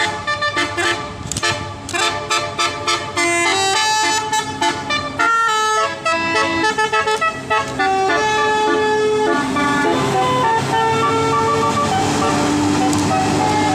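Bus 'telolet basuri' musical air horn playing a melody: quick staccato notes for the first five seconds or so, then longer held notes.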